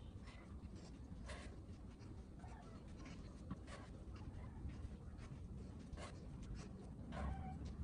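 Faint scratchy rustling and soft taps, a few seconds apart, from movement on an exercise mat during plank leg lifts, over a low steady rumble.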